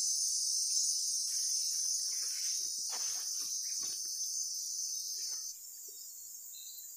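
Steady high-pitched chorus of insects, which drops suddenly in level about five and a half seconds in. Faint rustling and light knocks come and go in the middle.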